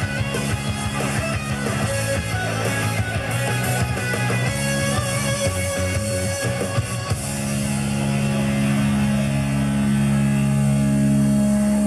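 Loud rock-style music with electric guitar and drums. About seven seconds in, the drum strokes stop and a steady held chord rings on and swells slightly, like the end of a song.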